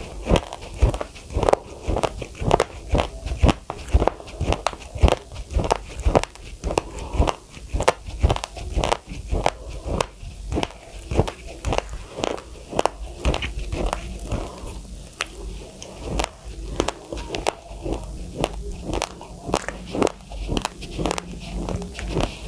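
Chewing a large mouthful of raw, uncooked rice: a steady run of crunches, about two to three a second, as the dry grains crack between the teeth.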